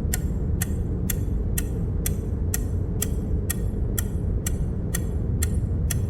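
A click sound effect ticking at an even pace, about two a second, each click marking one more count. Under it runs a steady low hum.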